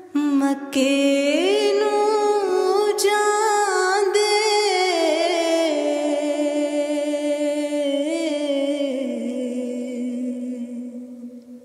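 A solo voice singing a long wordless melodic passage. The pitch glides up about a second in, then slowly falls, and the voice fades out near the end.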